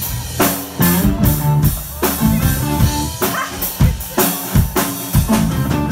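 Live rock band playing an instrumental passage: drum kit hits in a steady beat under electric guitar and bass guitar.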